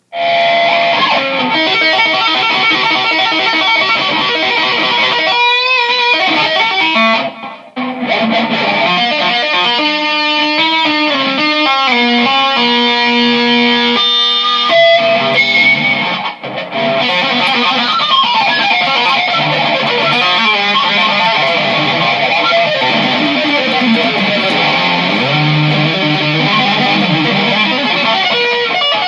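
Loud guitar music, strummed and plucked, starting abruptly, with two brief breaks about seven and a half and sixteen and a half seconds in.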